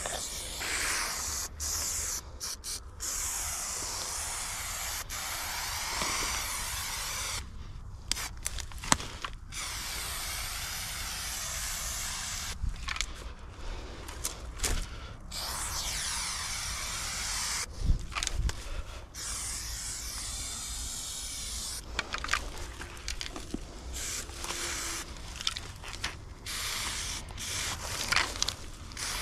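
Aerosol spray paint can hissing in long sprays of several seconds each, broken by short pauses.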